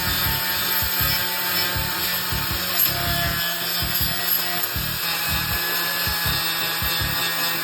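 Angle grinder with a flap disc running steadily against the steel floor panel of a 1974 Porsche 911, grinding off surface rust around a freshly cut-out rust hole.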